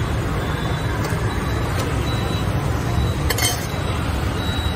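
Stainless-steel utensils clinking: a light tap about two seconds in and a louder ringing clatter about three and a half seconds in, as a lid and ladle are handled on steel pots. A steady low rumble runs underneath.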